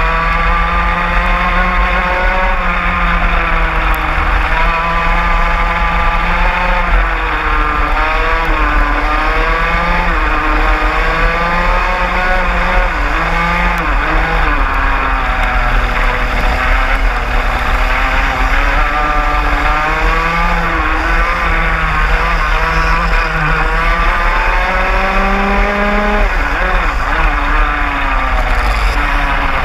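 A 125cc two-stroke racing kart engine heard onboard at racing speed, its revs climbing and dropping again and again as it goes through the corners, with other karts running close by.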